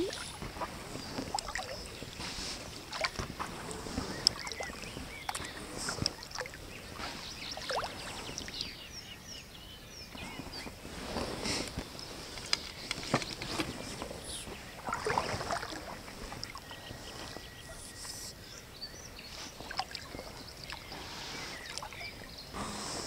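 Double-bladed kayak paddle dipping into the river with each stroke, giving repeated irregular splashes and drips of water as an inflatable packraft is paddled along.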